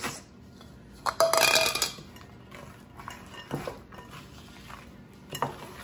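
Chopped walnuts tipped from a small glass bowl into a glass mixing bowl of batter, with a brief glassy clatter and clink about a second in. After that a wooden spoon scrapes and stirs through thick batter against the glass, with a few light knocks.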